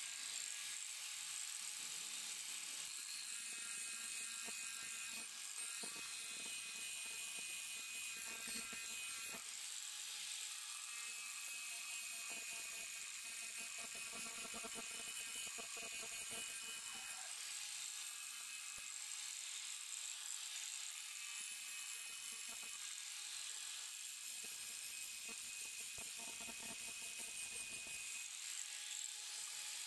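Electric angle grinder running at speed with an abrasive disc grinding a steel scissor blade, a steady high motor whine with grinding noise that swells and eases as the blade is pressed against the disc.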